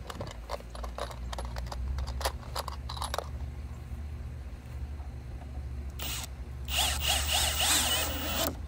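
Kobalt cordless drill driving a wood screw into a wooden railing picket: a short blip about six seconds in, then running for nearly two seconds, its pitch wavering as the screw bites. Before that, sharp clicks of screws being picked from a plastic tub.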